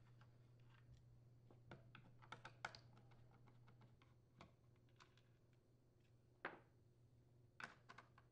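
Faint, scattered clicks and taps of a screwdriver turning screws out of a Homelite chainsaw's plastic recoil starter cover. A cluster of clicks comes about two seconds in and another near the end.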